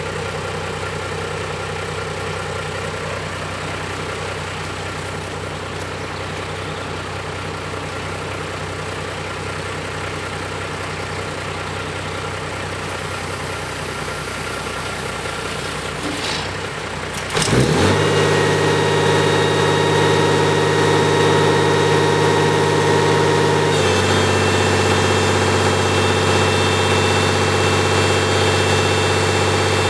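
Backhoe engine idling steadily, then revving up sharply a bit over halfway through and holding at a louder, higher speed. The pitch shifts once more a few seconds before the end.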